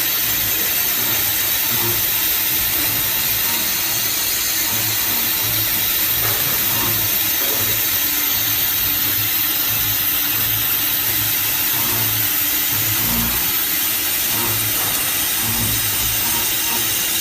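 High-speed milling spindle running an end mill through a workpiece: a steady, loud machining noise, mostly a high hiss, with no breaks.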